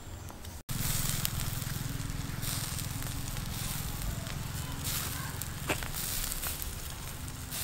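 Charcoal embers crackling and the whole roasting bird's juices sizzling over them on the spit, with scattered sharp pops.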